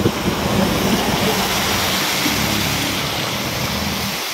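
A motor vehicle passing on a rain-wet road. Tyre hiss and engine hum swell early on and then slowly fade.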